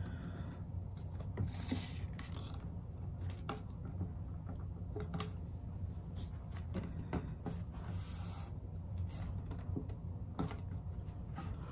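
Hands rubbing and pressing paper flat onto a glued wooden panel: light rustling and scattered small clicks, over a steady low hum.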